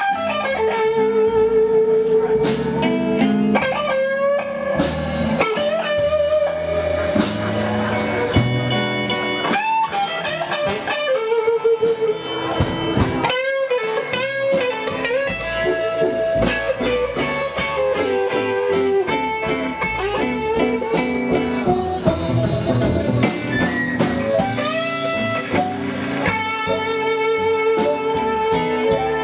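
Live blues band playing an instrumental passage on electric guitars, upright bass and drum kit, with long held, wavering lead notes.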